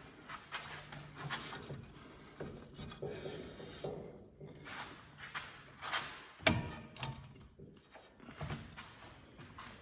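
Rubbing, scraping and clunking of a Chevrolet Equinox lower control arm being worked up and down by hand to line its stiff new ball joint up with the knuckle. A sharper knock comes about six and a half seconds in.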